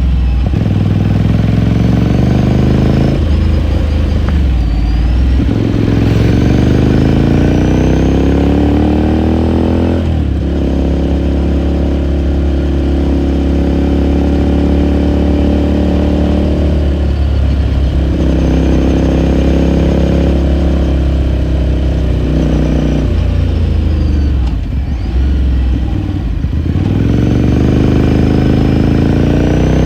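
2018 Ducati Scrambler Sixty2's 399 cc air-cooled L-twin engine and exhaust under way, accelerating through the gears: the pitch climbs, drops at upshifts about three and ten seconds in, then holds steady while cruising. The engine eases off and falls in pitch a little past the two-thirds mark, then pulls up again near the end.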